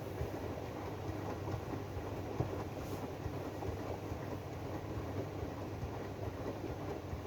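AEG DualSense washing machine running its Drum Clean cycle: a steady low hum from the turning drum with irregular small clicks and rattles.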